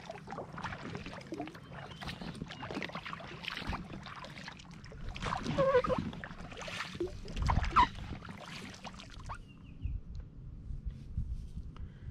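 Water splashing and lapping against an Intex inflatable kayak's hull as it is paddled, in short irregular splashes, with a few louder moments about six and eight seconds in.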